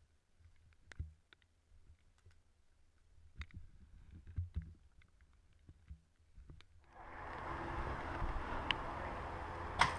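Faint scattered footsteps and gear clicks on the leaf-covered forest floor. About seven seconds in, a steady hiss sets in suddenly and continues.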